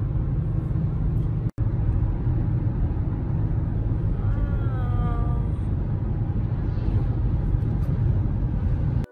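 Steady low road rumble of a car at highway speed, heard from inside the cabin: tyre and engine noise. It breaks off in a brief silent dropout about a second and a half in.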